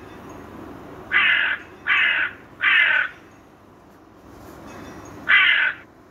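Crow cawing: three harsh caws in quick succession, then a single caw near the end.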